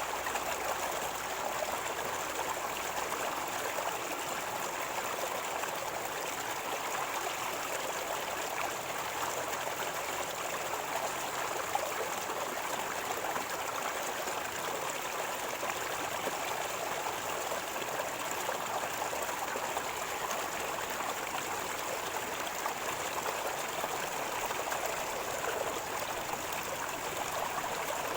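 River water gurgling and flowing, a steady rush that holds even throughout.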